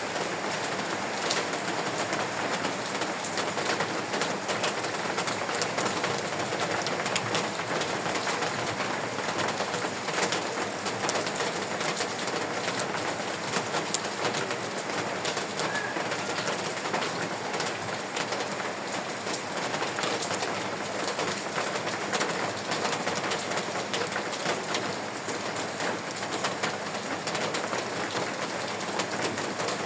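Steady rain falling, with many individual drops ticking through it, and a bird calling now and then in the background.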